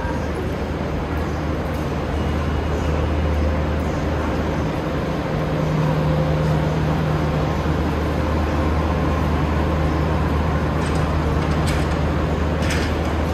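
Roosevelt Island Tramway cabin travelling along its cables, heard from inside the cabin: a steady low mechanical hum and rumble. A higher hum strengthens about a third of the way in, and a couple of faint clicks come near the end.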